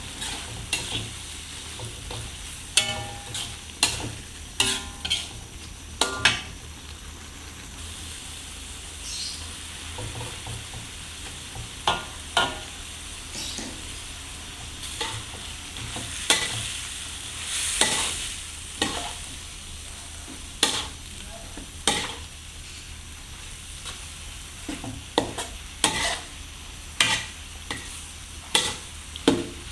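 Shrimp fried noodles being stir-fried in a hot pan: a steady sizzle, with a spatula knocking and scraping against the pan irregularly, about once a second.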